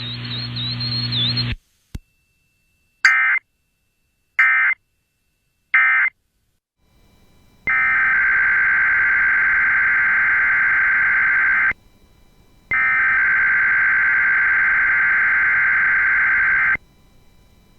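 Three short Emergency Alert System digital data bursts (the SAME screech), each under half a second and a little over a second apart, then a loud steady EAS alert tone in two stretches of about four seconds with a one-second break between them.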